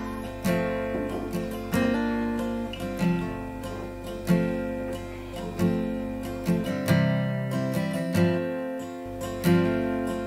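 Background music: an acoustic guitar strums chords and lets them ring, a new strum about every second and a quarter.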